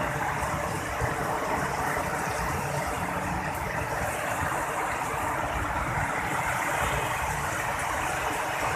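Very heavy rain pouring down in a steady, dense hiss.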